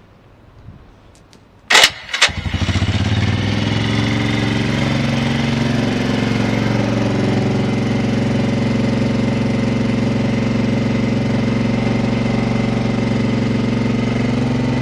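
Suzuki SW-1 motorcycle's single-cylinder engine started on the electric starter, catching at once about two seconds in. It then settles into a steady, even idle.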